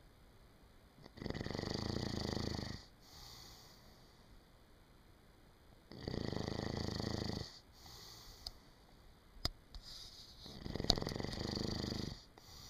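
A man snoring in his sleep: three long snores about four and a half seconds apart, each lasting about a second and a half, with softer breaths between them. A couple of sharp clicks come in the second half.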